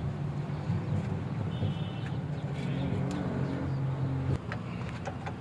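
A steady low machine hum that cuts off abruptly about four seconds in, with a few faint clicks.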